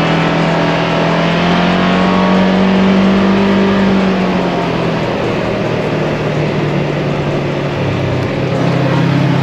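Polaris XP 1000 side-by-side's twin-cylinder engine running under way at a steady pace. The pitch rises a little, eases off after about four seconds, and drops lower near the end.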